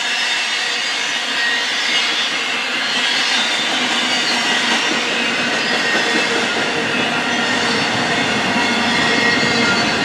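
Intermodal freight train passing, its flatcars loaded with semi-trailers: a steady rolling noise of steel wheels on rail, growing slightly louder toward the end.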